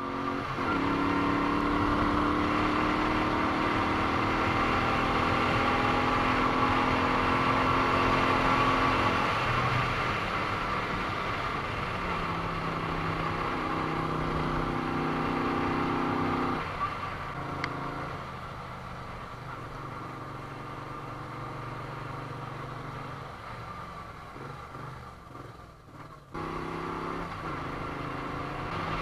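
Moto Guzzi V35's air-cooled 90-degree V-twin running under way, its pitch rising slowly and then dropping twice, as at gear changes. The second half is quieter, on a lighter throttle.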